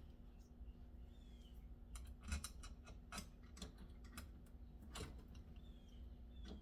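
Faint, irregular clicks and light taps of small lock hardware being handled during installation, the sharpest about two seconds in and again about five seconds in, over a low steady hum.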